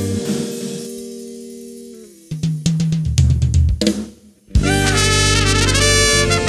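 A live band's held chord rings out and fades, then a short solo drum-kit break of kick, snare and cymbal hits. About four and a half seconds in, the full band with tenor saxophones and trumpet comes back in together.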